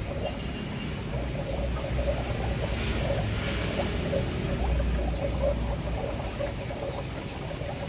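Aquarium filter running: a steady low pump hum with water flowing and bubbling.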